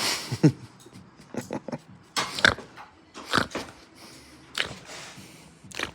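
A dog snuffling and snorting in short bursts, about one a second.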